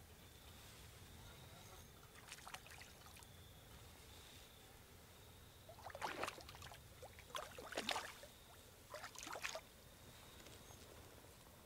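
Water splashing in several short bursts about two, six, eight and nine seconds in, against a quiet lake background.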